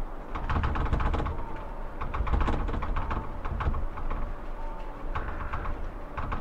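Irregular bursts of rapid rattling and clicking over a low rumble, coming in three or four clusters.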